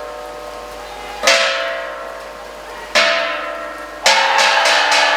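Bronze keys of a Balinese gamelan struck in slow single strokes about a second and a half apart, each ringing and slowly dying away, then about a second before the end breaking into fast repeated strikes, about four a second.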